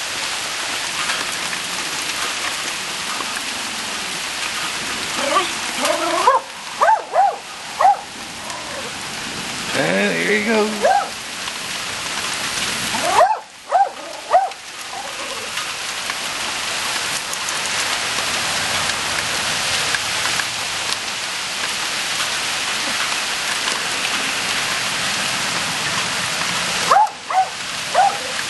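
Steady rain falling, with a Jack Russell terrier barking in short bursts: a quick run of barks around six to eight seconds in, more around ten and fourteen seconds, and two near the end.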